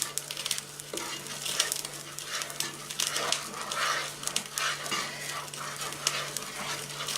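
A spoon stirring and scraping a melting fudge mixture of sugar, margarine and milk in a saucepan on full heat, with small scraping clicks and a light sizzle, over a steady low hum.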